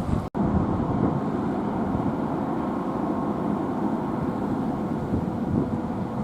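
Steady low rumble of a car ferry's engines with a faint steady hum, as the ship comes in to berth. It briefly cuts out for an instant just after the start.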